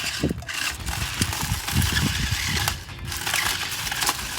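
Small toy RC stunt car driving over rocks and dirt. Its wheels scrabble across the ground and its body clatters, with scattered irregular clicks and knocks.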